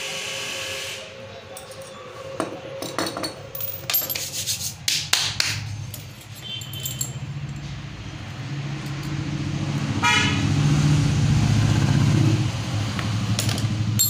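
Small metal hand tools clicking and scraping on a Honda Activa scooter's carburettor as its jet is unscrewed, with a string of sharp clicks in the first half. A low steady rumble from an unseen source builds up in the second half and is the loudest sound about ten to twelve seconds in.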